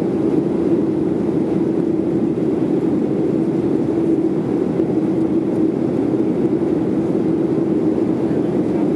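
Boeing 737-800 in flight, heard from inside the passenger cabin: a steady drone of its CFM56-7B jet engines and the airflow over the fuselage, with a constant low hum throughout.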